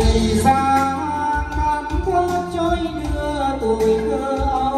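A Vietnamese ballad, with a singer's held, wavering melody over bass and keyboard backing, played loud through a home karaoke loudspeaker system that is being tested for its sound quality.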